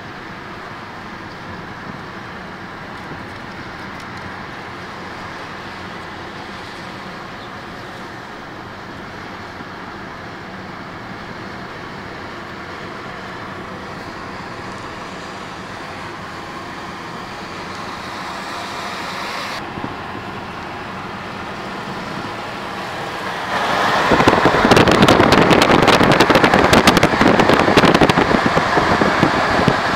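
Steady road and wind noise of a car travelling at highway speed, heard from inside the cabin. About 23 seconds in it turns much louder, into a rough rush of wind buffeting the microphone.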